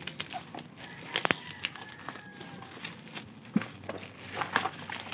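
Parcel packaging crinkling and rustling as it is unwrapped by hand, with scattered crackles and a sharp snap just over a second in.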